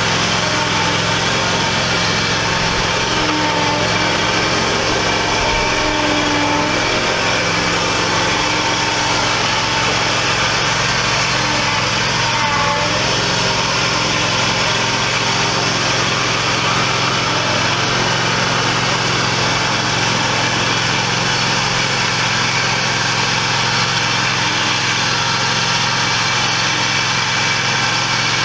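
Scag Cheetah zero-turn mower's engine running steadily as the mower drives along.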